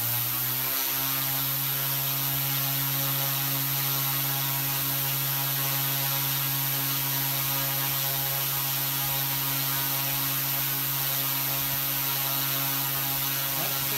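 OMPHOBBIES M2 mini electric RC helicopter's motor and rotors at 50% throttle with zero blade pitch, finishing their spool-up under a second in and then holding a steady whine. The main rotor is turning about 4,400 rpm.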